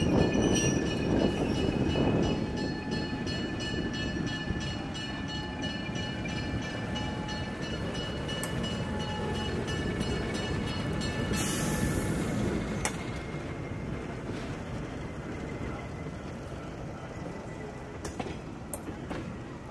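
Diesel-hauled excursion train rolling past, its wheels clicking over rail joints in a regular rhythm and the rumble fading as it draws away. A short hiss about twelve seconds in.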